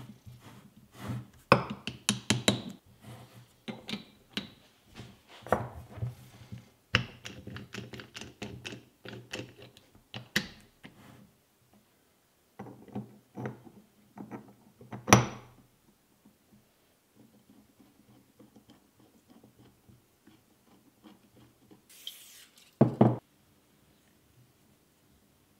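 Steel parts of a Pratt Burnerd three-jaw lathe chuck being handled and fitted together on a wooden bench: a busy run of metal clicks, clinks and light knocks for the first ten seconds or so. There is a single loud knock about halfway through and a loud double knock near the end.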